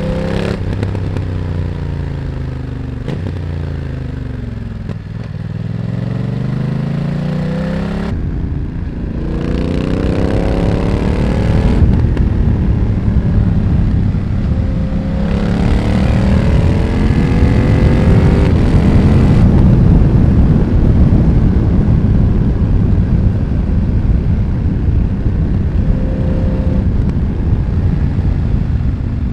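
BMW F900R's parallel-twin engine with a Mivv X1-M exhaust, on the move: the revs fall away over the first few seconds, then climb again in several rising pulls. A heavy rush of wind noise builds underneath in the second half and partly covers the engine.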